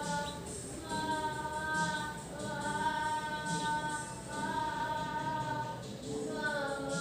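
Background music: a song with sustained sung notes, each held for about a second with short breaks between.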